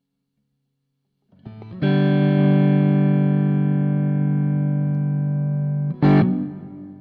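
Electric guitar chord played through a Zoom G1 Four multi-effects processor on its FD B-MAN (Fender Bassman-style) amp model, set for a crunch tone with light distortion. After about a second and a half of silence the chord is strummed and rings steadily for about four seconds. A sharp strum near the end cuts in and the sound dies away.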